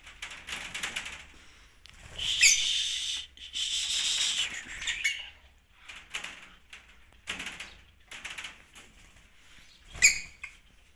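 Pet lovebirds calling in shrill chirps, loudest in a long chattering burst about two seconds in and a sharp call near the end, with short wing flutters in their wire aviary.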